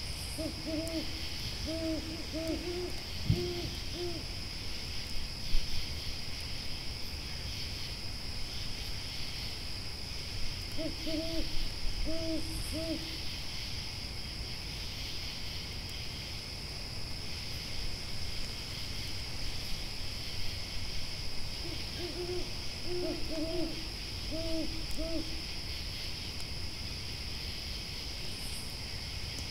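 Owl hooting in three bouts of several short, arched notes each, over the steady high chirring of insects and the low crackle of a campfire with a few sharp pops.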